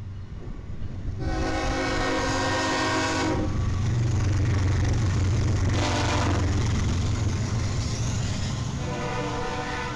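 Freight train's diesel locomotives passing close by, their engines making a heavy low rumble. The air horn sounds a long blast, a short one, then another long one starting near the end.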